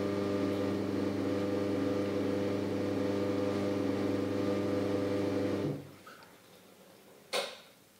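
A steady machine hum that stops abruptly after about six seconds, followed by a single sharp click near the end.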